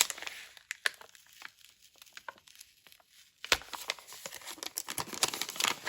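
Crinkling and crackling of a sticker pack's packaging being handled, quieter through the middle and then a denser, louder stretch of crinkling for the last couple of seconds.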